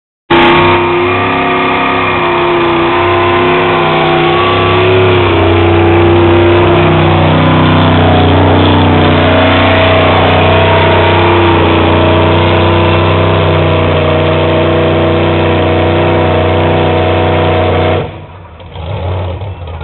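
Modified 4x4 pickup truck's engine running hard and steady at high revs under full load as it drags a pulling sled. The sound drops off sharply near the end as the pull ends.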